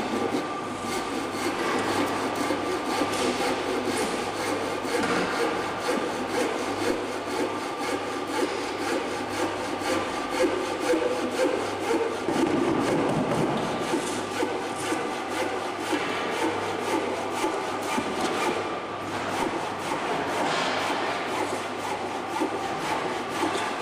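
Continuous scraping and rubbing noise of building work, with a faint steady hum beneath it.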